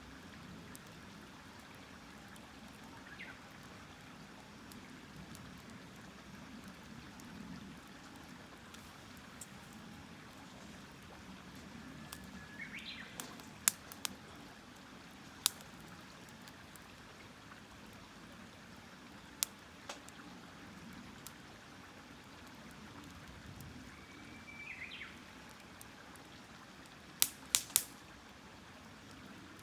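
Campfire burning, the wood giving off occasional sharp pops and cracks, three in quick succession near the end, over a steady rushing hiss.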